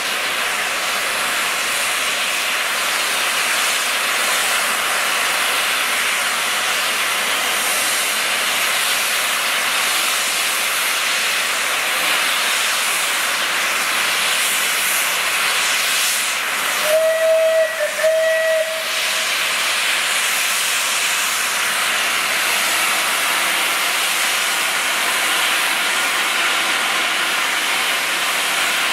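Steam locomotive 35028 Clan Line, a rebuilt Merchant Navy class Pacific, standing and blowing off steam with a loud, steady hiss. A little past halfway its whistle gives two short blasts in quick succession.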